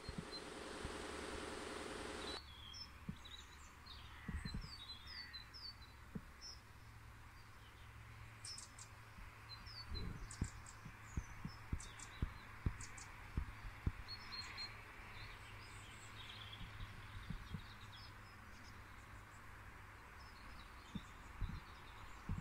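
Dawn chorus: birds calling with short high chirps scattered throughout, over a faint low hum. For the first two seconds or so a louder steady noise with a low drone sits underneath, then cuts off suddenly. A few soft low thumps come in the middle.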